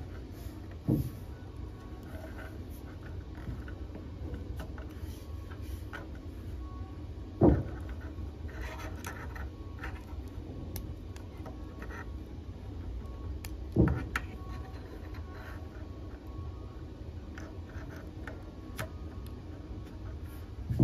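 Hands handling and transforming a small plastic Transformers G1 Skydive figure: faint plastic clicks and rubbing, with four sharp knocks spaced about six or seven seconds apart, over a steady low hum.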